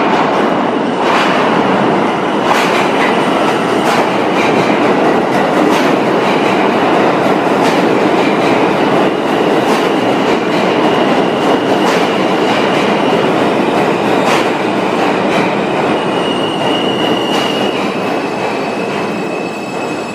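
R160 New York subway train running into the station past the platform: a loud, steady rumble of steel wheels on rail, with sharp clicks about every second or so from wheels crossing rail joints. A high steady tone comes in over the last few seconds.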